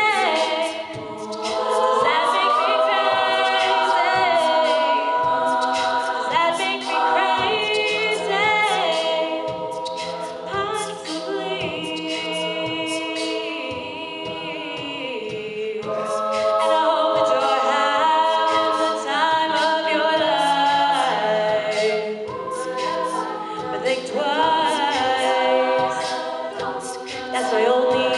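Female a cappella group singing without words: backing voices hold and shift close chords while a vocal percussionist keeps a steady beat of mouth-made clicks and hi-hat sounds.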